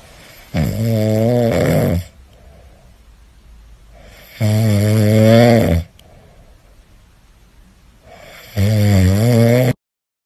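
A husky snoring in its sleep: three long, pitched snores about four seconds apart.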